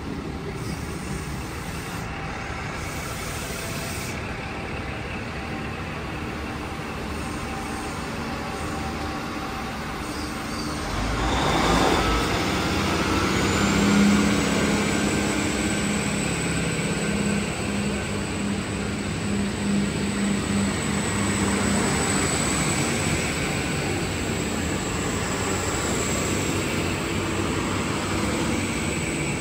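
Diesel train passing through a station, with a steady rumble of engine and wheels on rail that grows louder about eleven seconds in. A thin high-pitched squeal starts then and holds, over a low engine drone.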